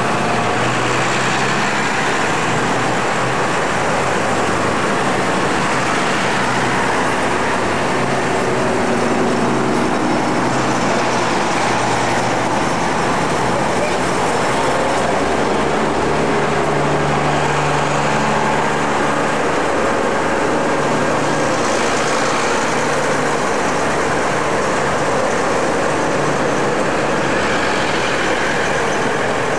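Road traffic on a street: cars and a van driving past with their engines running, and voices talking under it.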